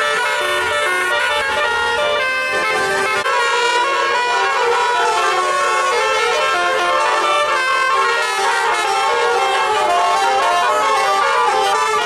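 Tour bus telolet horn sounding through its roof-mounted trumpets, playing a continuous tune of short notes that step up and down in pitch.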